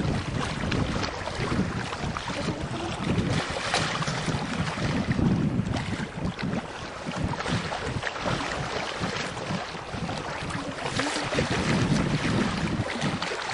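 Wind buffeting the microphone: a steady rushing noise with uneven low rumbles that swell and fade.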